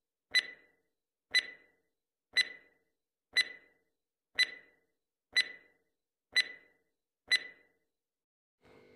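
Stopwatch ticking sound effect of a countdown timer: eight sharp, bright ticks, one a second.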